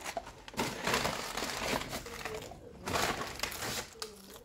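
Crinkling and crunching close to the microphone from eating French fries out of a paper fry carton, in two spells, a longer one starting about half a second in and a shorter one near the end.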